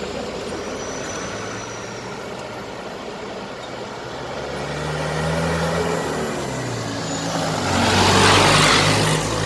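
Heavy diesel road vehicle, a bus or truck, passing close: its low engine drone grows louder from about halfway, with a loud rushing noise about eight seconds in as it goes by.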